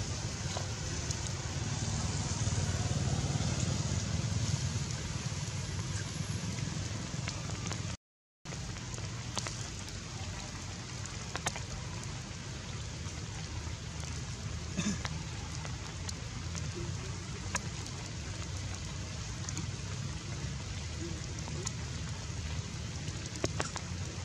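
Rain falling, an even hiss with many small drop ticks, over a steady low rumble. The sound cuts out completely for a moment about a third of the way through.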